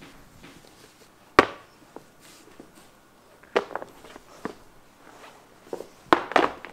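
Footsteps and knocks on a wooden floor as a stack of caps is handled and picked up: a handful of sharp, separate knocks, the loudest about a second and a half in and a quick cluster near the end.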